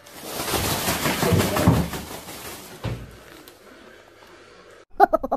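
A cat scrambling and skidding across a polished wooden floor: a rushing, scratchy sound for about three seconds that ends in a single thump.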